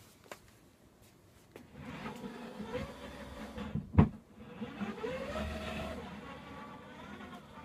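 Servocity HD planetary gear motors of a differential-drive robot whining under radio control, starting about two seconds in, their pitch rising and falling twice as the motors speed up and slow down. A single sharp knock about four seconds in is the loudest sound.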